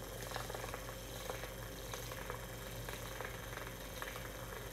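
Handheld battery milk frother whirring steadily in a mug of bulletproof coffee, whipping the coffee, butter and cream into a foam.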